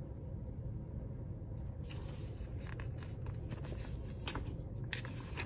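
A picture book's paper pages being handled and turned: a few short, light rustles and clicks over a steady low room hum.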